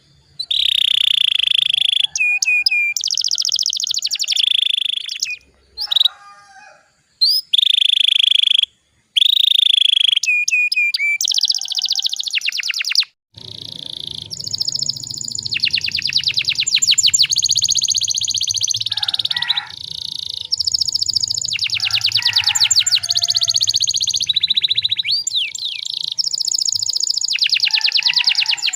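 Young domestic canary singing a long song: held whistled notes alternate with fast rolling trills, broken by brief pauses. About halfway through, a low hum appears under the song.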